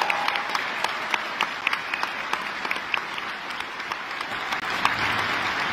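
Audience applauding: many hands clapping in a dense, even patter, easing off slightly midway.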